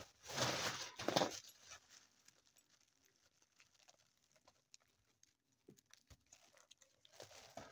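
Dried popcorn kernels being stripped off the cob by hand and pattering into a pan: two short rattling bursts in the first second and a half, then scattered light clicks, and another rattle near the end.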